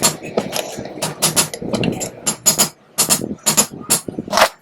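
Repeated light hammer taps on a ceiling fan's die-cast motor cover, knocking it down onto its bearing seat; the knocks come irregularly, several a second.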